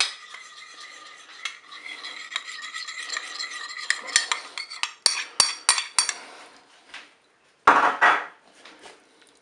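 Metal spoon clinking and scraping in a small glass bowl as vinaigrette is spooned out over a salad, with a run of sharp clinks about four to six seconds in and a louder scrape near the end.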